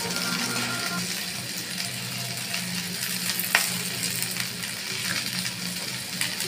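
Chopped okra frying in hot mustard oil in a steel kadhai, a steady sizzle. One sharp click comes about three and a half seconds in.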